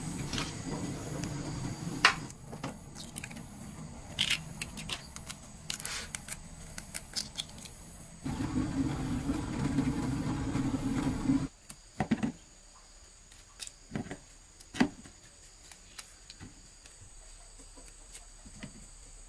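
Kitchen handling sounds: eggs tapped and handled over plastic bowls with sharp clicks, the loudest about two seconds in. Then an electric kettle rumbles steadily as it heats, cutting off suddenly about three seconds later, followed by a few light clicks and taps of grapes handled in a plastic tub.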